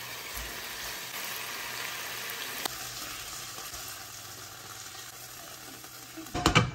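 Chicken pieces sizzling in hot oil and sauce in a nonstick frying pan, a steady frying hiss that eases off slowly. A brief clatter of knocks near the end, as they are handled with tongs.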